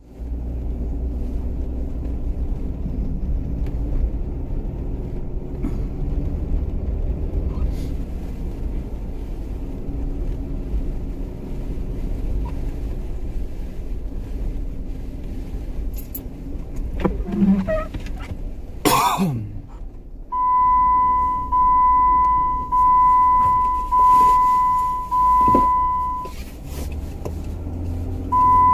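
A Jeep's engine running with a steady low rumble. A loud sudden noise comes about two-thirds of the way in, then a string of steady, high electronic beeps about a second long each, five in a row and one more near the end.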